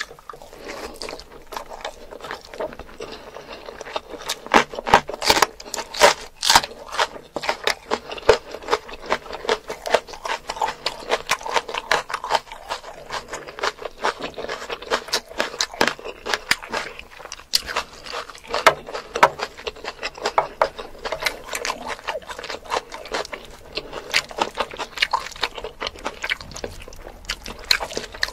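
Close-miked eating sounds of a person chewing mutton curry and rice: wet smacking and a dense run of sharp mouth clicks throughout.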